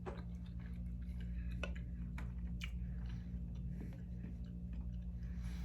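A person chewing a mouthful of Flamin' Hot Cheetos sushi roll close to the microphone: soft, wet chewing with a few faint clicks, over a steady low hum.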